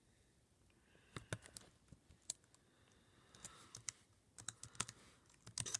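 Typing on a laptop keyboard: faint, irregular key clicks starting about a second in, coming in short clusters and busier near the end.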